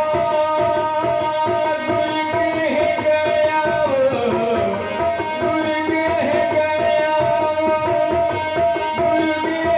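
Instrumental interlude in a devotional kirtan: tabla playing under a sustained melody line, with regular bright cymbal-like strikes through roughly the first four seconds.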